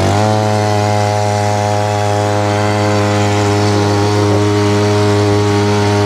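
Small outboard motor on an inflatable boat running steadily under way, with a brief dip in engine speed right at the start before it picks back up.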